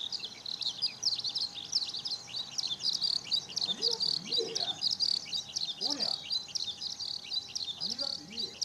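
Eurasian skylark singing: an unbroken stream of rapid, high chirps and trills. A few lower swooping sounds come through around the middle and again near the end, over a faint steady hum.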